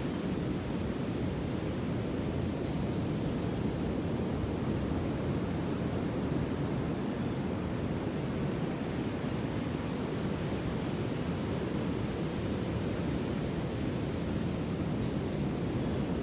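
Sea surf washing steadily: a low, even rushing with no single wave breaking out above the rest.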